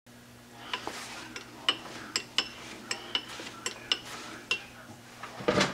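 Light metal-on-metal clicks and clinks, roughly two a second, each ringing briefly, from metal parts being handled at a lathe, with a louder clunk near the end.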